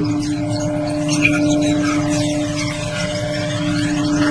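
Perhydrol (concentrated hydrogen peroxide) poured in a thin stream from a plastic bottle into a glass beaker, over a steady mechanical hum that is the loudest sound.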